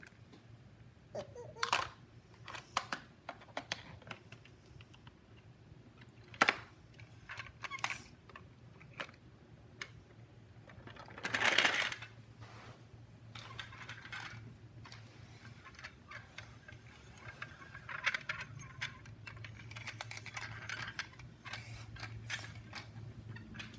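Hard plastic toy playset parts being handled: scattered light clicks and knocks. There is a brief rush of noise about halfway through.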